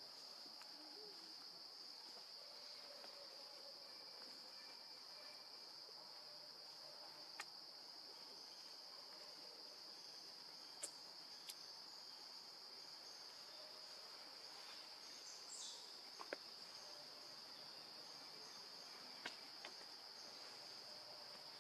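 Faint, steady, high-pitched drone of forest insects, with a few sharp clicks scattered through it.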